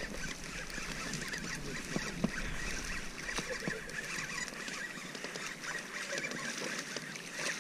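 A hooked pike splashing at the surface close beside an inflatable boat, with scattered small knocks from tackle and boat.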